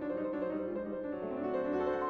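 Background piano music, a steady run of notes.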